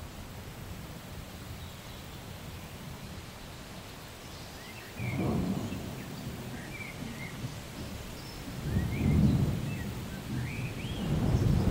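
Thunder rumbling, with a low swell about five seconds in, another a few seconds later, and a third building near the end, over a steady low background rumble. Short high chirps are scattered through the second half.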